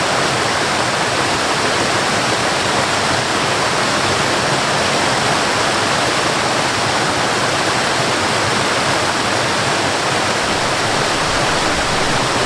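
Forest waterfall rushing, a steady unbroken roar of falling water.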